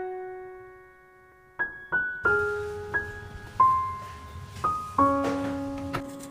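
Background piano music: single notes and soft chords that each ring and fade. After a brief pause about a second in, the notes pick up again at a slow, gentle pace.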